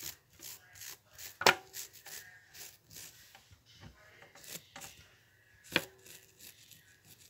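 Short, irregular scratches and clicks of a small plastic brush being worked over the toes and toenails, with two sharp knocks, about a second and a half in and again near the end.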